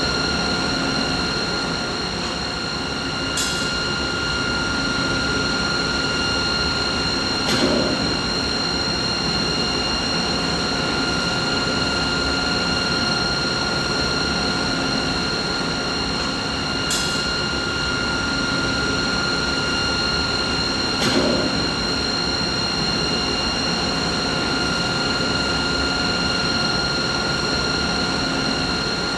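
Machine running steadily: an even, mid-pitched mechanical hum with several steady whining tones over it, broken by a faint click now and then.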